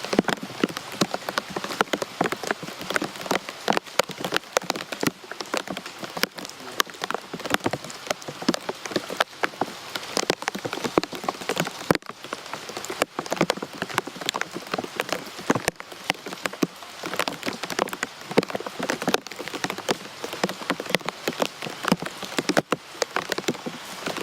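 Rain falling steadily, with dense, sharp drop hits close by on a hard surface.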